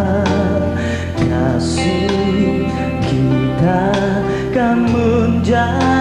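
Music: a Malay pop ballad, a singer's voice over guitar and band accompaniment.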